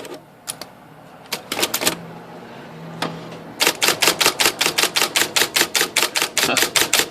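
IBM Selectric I electric typewriter typing: a few single keystrokes, then from about three and a half seconds in a fast, even run of strikes, about six a second, as the X key repeats. It now runs evenly with no banging or shaking, its lowered bracket raised back into place, and sounds even quieter.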